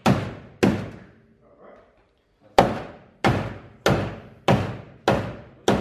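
Repeated hard blows on a car's sheet-metal body panel, struck about once every 0.6 seconds, each with a brief ring: panel being beaten back into shape. Two strikes, a pause of about a second and a half, then six more.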